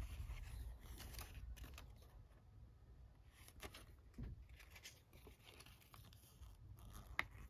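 Faint rustling and crinkling of a folded paper checklist leaflet being handled, unfolded and refolded, with a single sharp tick near the end.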